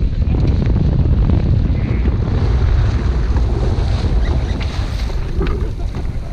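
Heavy wind rumble buffeting the microphone aboard a J/109 sailboat under sail, with water rushing along the hull.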